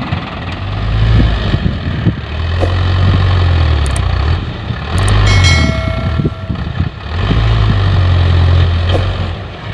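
Diesel dump truck engine revving hard in repeated long surges under heavy load, with a brief high whine about halfway through.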